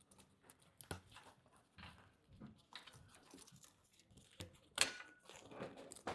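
Soft rustling of fabric and netting, with scattered small clicks and taps as the bed's netting roof is handled and worked into place; the sharpest click comes a little under five seconds in.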